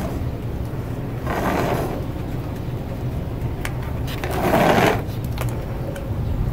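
Hands handling a potted bonsai: leaves and branches rustle and the pot shifts in two short swells, over a steady low hum.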